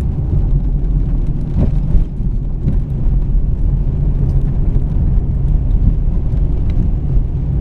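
Steady low rumble of a 2007 Ford Freestar minivan driving over a rough, patched road, heard from inside the cabin, with a few light knocks from bumps. The van is riding on newly replaced front struts.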